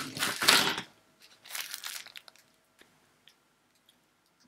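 Rustling and crinkling as something is handled: a loud burst in the first second, a softer one around a second and a half in, then a few faint clicks.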